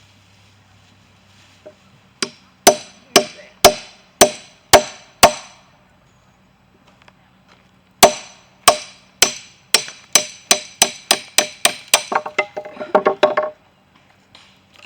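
Kindling being chopped, a blade striking wood in sharp ringing chops: about seven at roughly two a second, then after a pause a faster run that quickens into a quick clatter before stopping.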